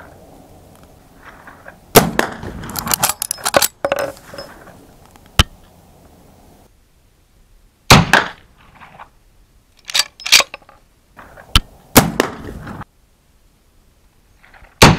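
Model 1873-style lever-action rifle firing black-powder .44-40 (.44 Winchester Center Fire) cartridges: several loud, sharp shots a few seconds apart, with smaller metallic clicks of the action between them.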